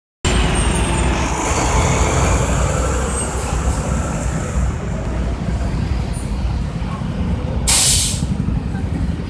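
Steady low rumble of street traffic, with one loud, short air-brake hiss from a heavy vehicle about eight seconds in.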